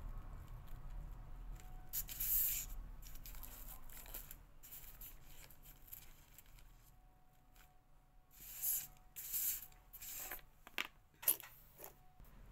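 Rustling of fabric flower petals as they are handled and pressed onto a foam form, in several short bursts, with a few sharp clicks near the end.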